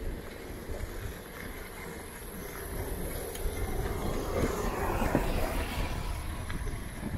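Riding noise from a bicycle on the move: a steady low rumble of wind and rolling tyres, swelling louder about halfway through.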